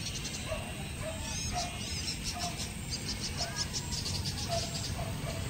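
Birds chirping and insects trilling in a quick series of short high calls, over a low rumble of wind on the microphone.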